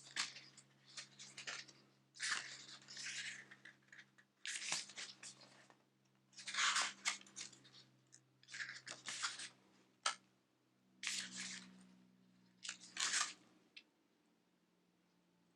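Paper and plastic packaging of a limited edition Blu-ray set rustling and crinkling as it is handled and opened, in a series of short bursts that stop about two seconds before the end.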